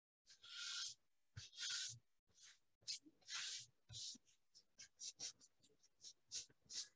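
Dried masking fluid being rubbed off Arches watercolour paper: faint scratchy rubbing strokes, longer in the first few seconds, then shorter and quicker.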